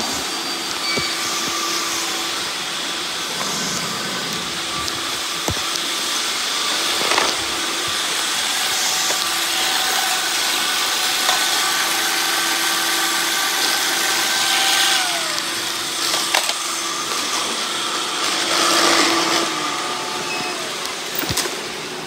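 Robot vacuum cleaners running on a hard tile floor: a steady whir with several motor tones at different pitches and a few short clicks and knocks.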